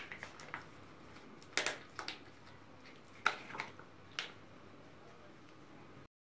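A few light clicks and taps of things being handled on a table over faint room noise; the sound drops out completely near the end.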